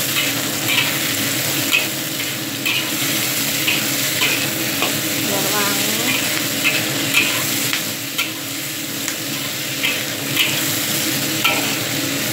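Bell peppers, onion and ginger sizzling in a hot wok while a metal spatula scrapes and tosses them, about one scrape a second over the steady hiss of frying. The vegetables are being stir-fried only until half-cooked.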